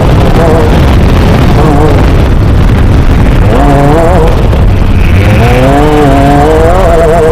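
Off-road race vehicle's engine running hard, heard very loud and distorted from a camera mounted on the vehicle. Its revs swing up and down every second or two as the throttle changes.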